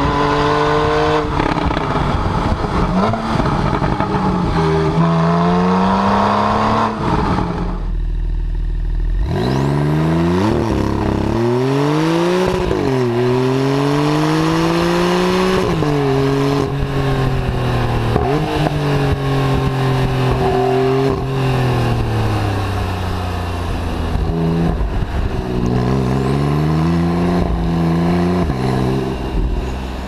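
Exhaust of a Porsche 991 Carrera heard right at the tailpipes under hard acceleration. First comes the 3.8-litre naturally aspirated flat-six, its pitch climbing steadily. Then, after a brief break about eight seconds in, comes the 3.0-litre twin-turbo flat-six, rising and dropping again and again as it shifts up through the gears.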